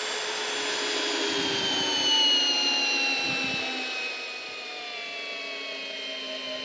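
Hilti SF 6H-A22 cordless hammer drill running without a break under heavy load, driving an 8-inch lag screw into a wooden log through a socket adapter. Its motor whine falls slowly in pitch as the screw sinks deeper.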